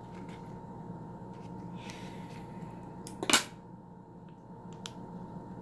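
Small scissors snipping and clicking while cutting open a leathery ball python eggshell, with one louder short sound about three seconds in, over a steady hum.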